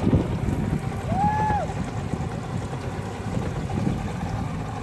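Pontoon boat on the water: a steady low rumble of its motor, mixed with wind on the microphone. About a second in there is one short tone that rises, holds and falls.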